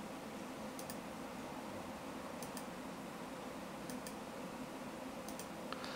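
Faint computer mouse clicks: four pairs of quick clicks, about a second and a half apart, over a steady low hum.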